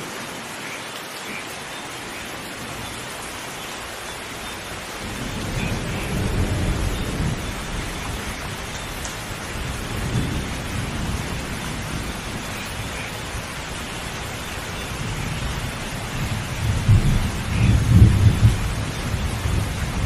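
Thunderstorm: heavy rain hissing steadily, with low rolling thunder swelling in about five seconds in, again around ten seconds, and loudest near the end.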